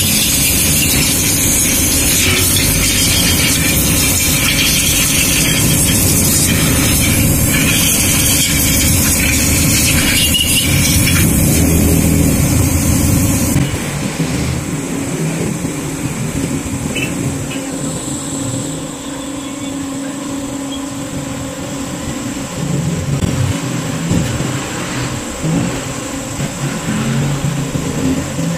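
An engine runs steadily amid workshop noise. About halfway through the sound drops suddenly to a quieter, steadier hum.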